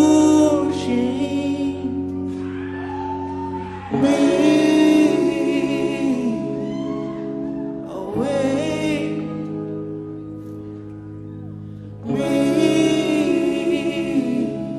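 Background music: a slow song with singing over held chords, a new sung phrase coming in about every four seconds.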